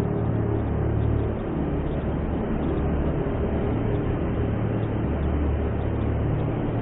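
Steady deep-sea underwater ambience: a low, droning rumble under an even wash of noise, with no distinct events.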